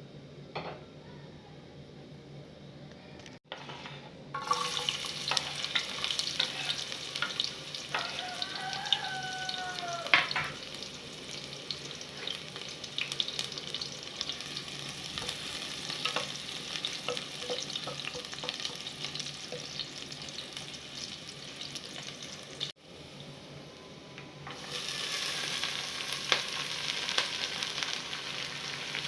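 Food sizzling as it fries in hot oil in a pan, stirred with small scrapes and clicks of a spoon. The sizzling gets louder about four seconds in, and again after a short quieter stretch near the end.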